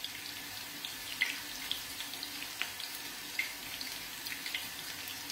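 Artichoke pieces shallow-frying in oil in a small pan: a steady sizzling hiss with scattered small pops and crackles.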